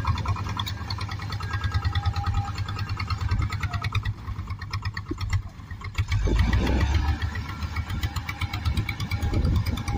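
Kubota M5000 tractor's diesel engine running steadily, a fast-pulsing low rumble, as it pulls a rotary puddler through flooded paddy mud; it grows louder about six seconds in.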